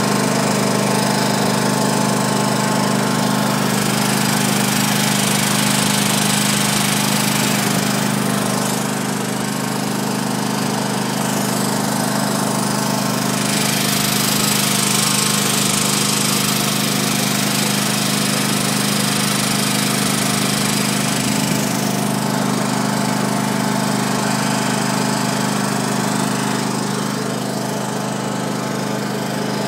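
Vehicle engine running at a steady low speed during a slow drive, under a broad hiss that swells for several seconds around the middle.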